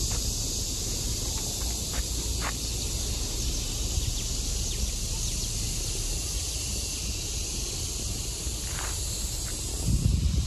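Steady high-pitched insect chorus from the trees, over a low rumble of wind on the microphone that swells near the end.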